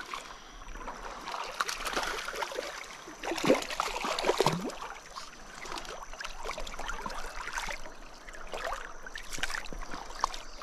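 Splashing and gurgling water as a hooked brown trout thrashes at the surface of a shallow river riffle, over the steady run of the stream, with the loudest splashes about three and a half to four and a half seconds in.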